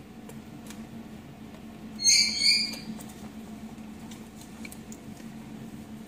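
Baby white-bellied caique giving a short, high-pitched two-note squeak about two seconds in, over a faint steady low hum.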